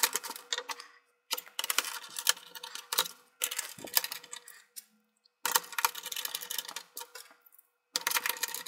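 Plastic clicks, taps and scrapes in short clusters as the bottom plate of an ASUS Chromebox mini PC is pressed back onto its case, with a screwdriver working at a corner screw near the end.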